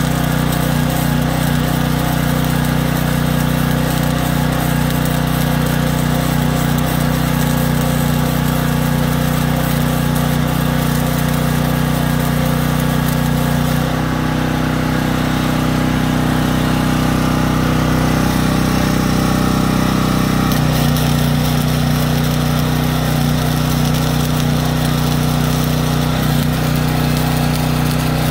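A small portable generator engine runs steadily under the crackle of arc welding on a shopping cart's steel frame. From about 14 s to about 20 s an angle grinder takes over, changing the engine note, and welding resumes near the end.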